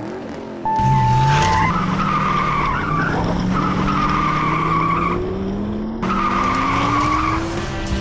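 Race-car sound effect laid over the toy race: a held start beep, then car engines revving up with tires squealing. The sound cuts off and starts again about six seconds in.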